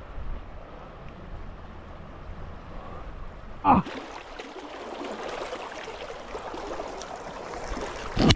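River water flowing, a steady rushing hiss. A single loud knock comes a little under four seconds in, after which the water sounds brighter and fuller.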